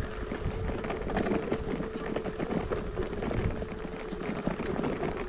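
Kugoo G2 Pro electric scooter riding over rough ground: a steady motor whine with irregular knocks and rattles from the frame and wheels over the bumps.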